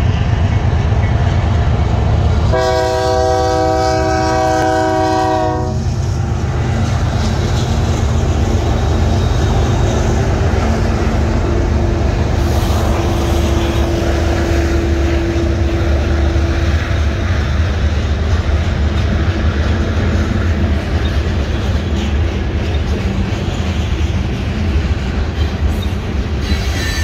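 BNSF mixed freight train rolling through a grade crossing, its cars rumbling and clacking past on the rails. One horn blast starts about two and a half seconds in and lasts about three seconds.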